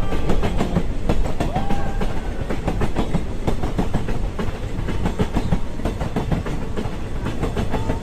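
Train running on the rails, its wheels clattering rapidly over the track, with a couple of brief squeals.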